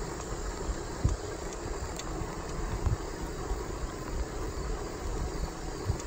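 Wind rumbling and buffeting on the microphone while the camera moves fast along a path, with a few louder low knocks. A faint, steady, high insect trill runs underneath.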